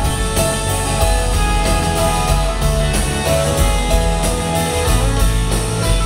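Live rock band playing, led by a strummed acoustic guitar over bass guitar, heard from within the audience in a theatre.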